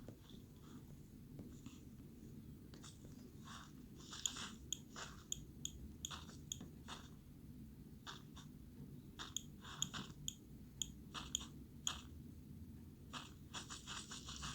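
Faint, irregular light clicks and ticks, some in quick clusters, over a low steady hum.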